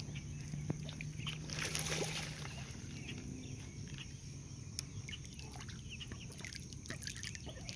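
Water lapping and sloshing against a wooden dock, with a low steady hum that fades out about two seconds in and a brief noisy gust around the same time. Faint, scattered high chirps from mallard ducklings.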